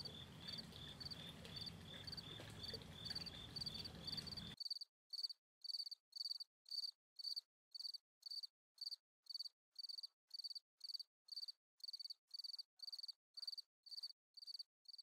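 Crickets chirping in a steady rhythm. About four and a half seconds in, the background hiss drops away abruptly, leaving clean, regular chirps about two to three a second.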